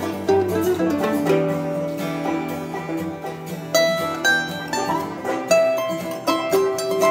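Background music played on plucked string instruments, a quick run of short picked notes throughout.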